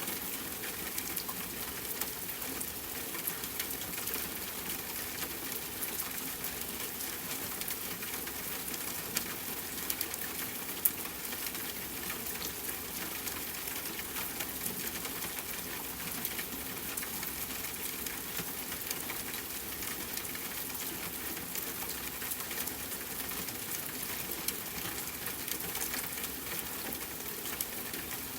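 Rain falling steadily, a dense haze of many small drop ticks with a couple of louder single drops about nine and eleven seconds in.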